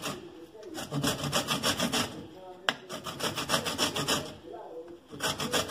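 Lemon rind being grated on a perforated metal grater: quick rasping strokes, about four or five a second, in runs with short pauses, and one sharp tap about two and a half seconds in.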